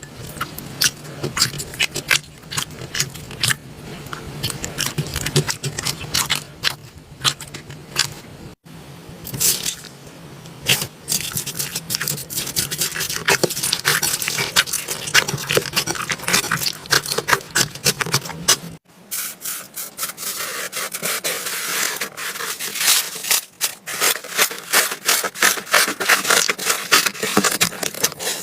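Slime being squished and stretched by hand, making dense clicking and crackling pops. There are three takes, with abrupt changes about nine and nineteen seconds in, and a low hum under the first two.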